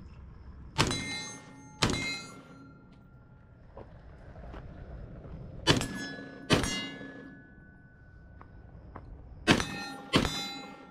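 Rifle shots fired as three double taps, the two shots of each pair about a second apart and the pairs about four seconds apart. A ringing tone hangs on for a second or two after some of the shots.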